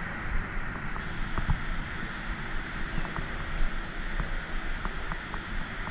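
Wind buffeting the microphone in a steady rumble, with a few faint light clicks as fingers handle a small fishing lure on the line.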